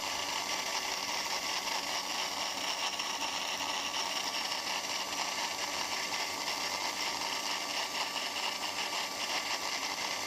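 Electric blender motor running steadily, whirring without a change in pitch as it blends eggs and oil into mayonnaise.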